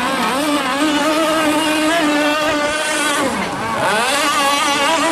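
Mini speedboat engine running at high revs with a steady pitch, dropping off briefly about two-thirds of the way through, then revving back up.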